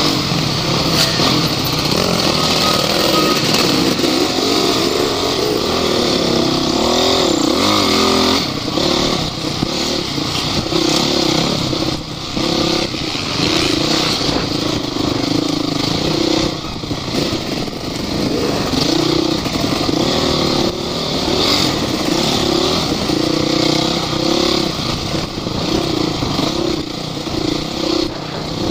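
Off-road vehicle engine running loud, its pitch rising and falling again and again as it revs up and eases off, under a steady hiss.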